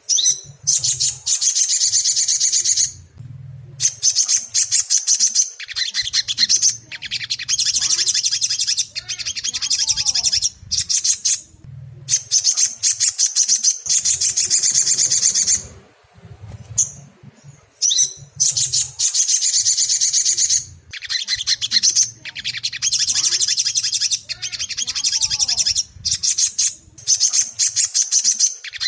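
Crimson sunbird (sogok ontong) singing: rapid, high-pitched chattering trills in repeated bursts of one to three seconds, separated by short pauses.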